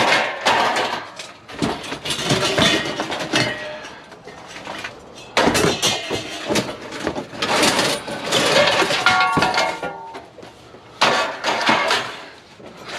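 Scrap metal clanking and clattering as pieces are handled and tossed onto a pile, in several bursts, with a brief metallic ring about nine seconds in.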